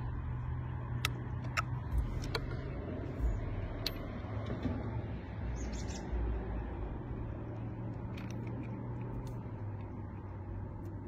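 A few light clicks and taps as a brass combination padlock and a thin shim cut from a juice carton are handled, mostly in the first four seconds. Under them is a steady low outdoor rumble with a few faint bird chirps.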